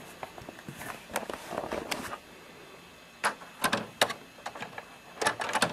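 Jackpot mechanism of a Sanyo Comet IIL pachinko machine being worked by hand: light clicking and rattling of the metal arm and lever linkage, then several sharp clacks, three about a second apart and a quick cluster near the end, as the newly modified arm is tested.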